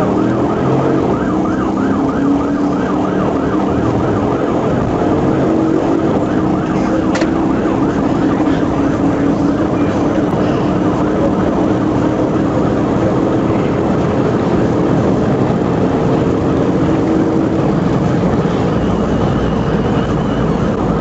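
Police squad car siren sounding continuously in a fast, repeating rise and fall during a high-speed pursuit, over the steady note of the car's engine running hard and road noise.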